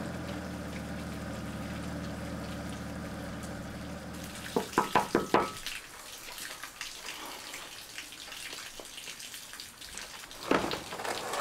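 Car engine idling steadily, then a quick run of about five knocks on a door about four and a half seconds in, after which the engine sound stops. A few more knocks come near the end.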